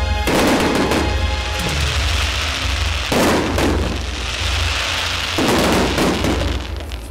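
Instrumental backing music with a steady bass line, cut through by three loud booms from aerial firework shells bursting: one just after the start, one near the middle and one later on, each rumbling away over about a second.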